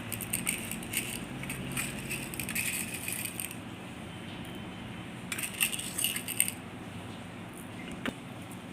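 Peppercorns rattling and clicking in a small miniature cooking vessel: dense, irregular light clicks for the first few seconds, another short spell about five seconds in, and one sharper click near the end.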